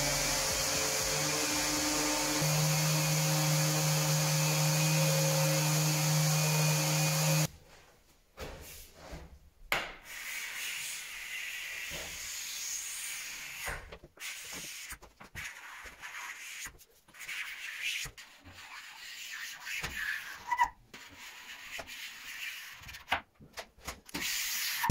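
Random orbital sander with its dust-extraction vacuum running steadily, cutting off suddenly about seven seconds in. It is followed by irregular strokes of a hand scraper rubbing and scraping white residue across the wooden tabletop.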